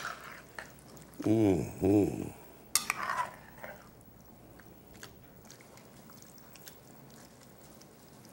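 A long metal spoon stirring a pot of simmering steak étouffée, with light scrapes and clinks of metal against the pot. A man makes two short voiced sounds about a second in, and the stirring grows faint and sparse in the second half.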